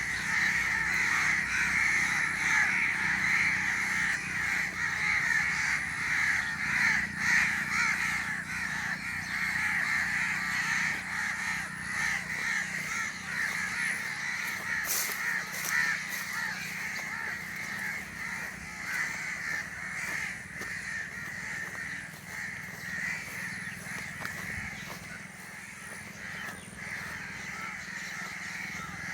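A dense chorus of many birds calling at once, steady and unbroken, slowly fading in the second half.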